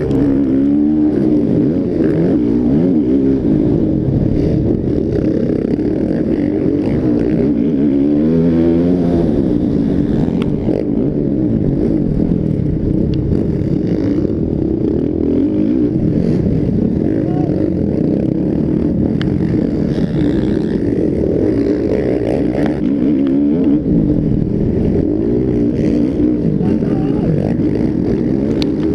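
Motocross bikes racing, engines revving up and down over and over as riders work the throttle and gears, with several pitch rises and falls, the clearest about a second in and around eight seconds in.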